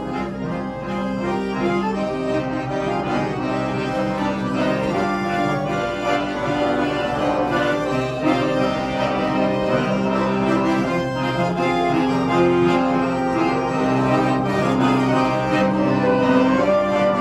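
Several accordions playing a hymn introduction in held chords, growing somewhat louder toward the end.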